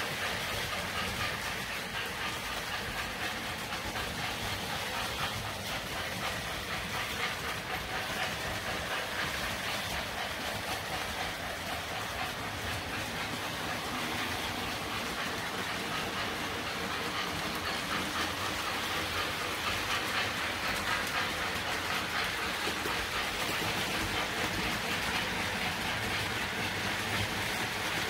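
O gauge model steam locomotive, a 4-6-4 Hudson, running steadily on three-rail track: a continuous running noise of wheels on the rails, a little louder in the second half.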